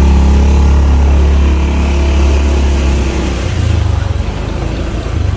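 Motorcycle engine pulling away and running loud, with a strong low rumble; its note steps up about three and a half seconds in.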